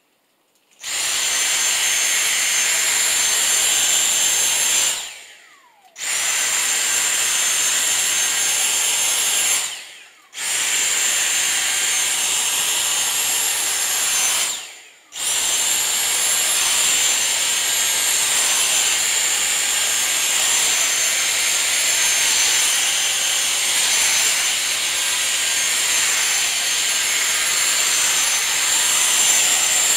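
Dyson V6 Mattress cordless handheld vacuum running with a steady high-pitched whine as it is drawn over a plush teddy bear. It starts about a second in, winds down and restarts three times in the first half, then runs without a break.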